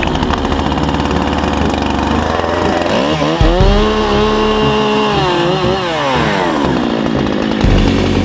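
Two-stroke chainsaw running, revving up about three seconds in, held at high speed for a couple of seconds, then dropping back down.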